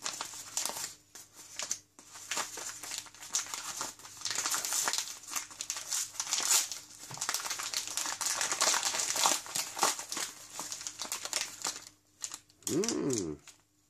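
A white airmail envelope crinkling and tearing as it is ripped open by hand: an irregular run of crackles and rips. Near the end the plastic bags inside rustle as they are pulled out.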